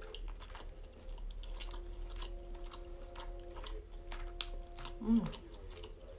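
A person biting into and chewing a tuna-stuffed squid, with many short, wet mouth clicks.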